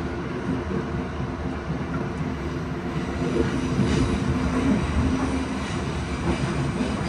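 Tokyo Metro Marunouchi Line subway train running through a tunnel, heard from inside the car: a steady rumble of wheels and running gear with a low motor hum.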